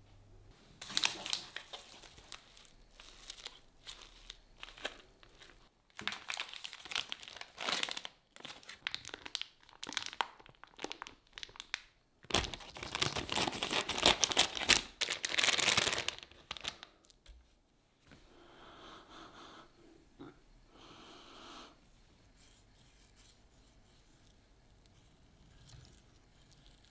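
Crinkling and rustling of a foil vacuum pack being handled and cut open with scissors, in several loud bursts, the longest and loudest about halfway through. Softer, quieter handling sounds follow after that.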